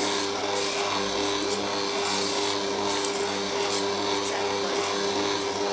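Stand mixer's motor running steadily as it kneads bread dough, with a few short hisses of aerosol release spray sprayed into a cast-iron loaf pan, the longest around two seconds in.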